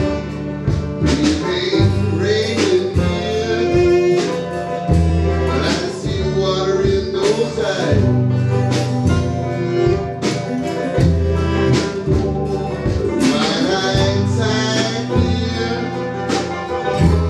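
A small band playing a song live in a room: drum hits over a bass line, with keyboard and guitar parts.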